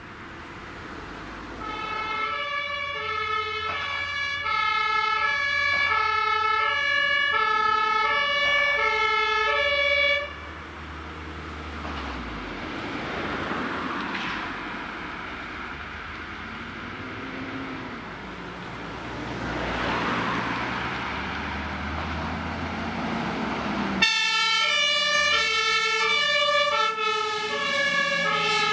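German fire engine's two-tone siren (Martinshorn) alternating a high and a low note, each held under a second. About ten seconds in it stops and the truck's engine and tyres are heard going by, swelling twice. The two-tone siren then starts again abruptly near the end.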